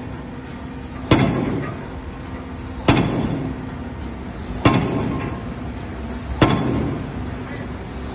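Heavy machine striking in a steady rhythm, one loud impact about every second and three-quarters, each followed by a fading rumble.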